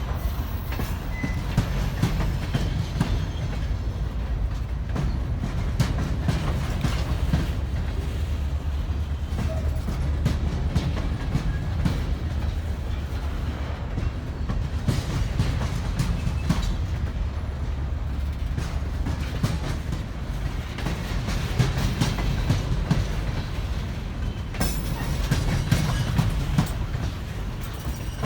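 Ballast train rolling past, its wheels clicking over the rail joints above a steady low rumble.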